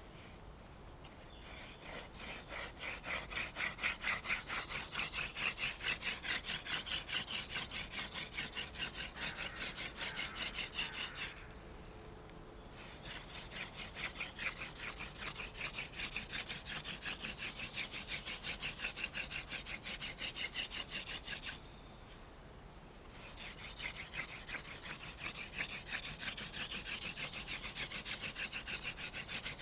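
Hand-drill friction fire: a wooden spindle spun back and forth between the palms, its tip grinding into a wooden hearth board with a fast, rhythmic scraping. It runs in three bouts, stopping briefly about 11 seconds in and again about 22 seconds in.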